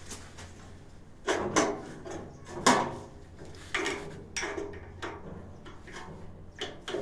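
Screwdriver knocking and clicking against the metal water valve and mounting bracket of a Yang gas water heater as a screw is fitted and turned: a string of irregular sharp knocks, the loudest nearly three seconds in.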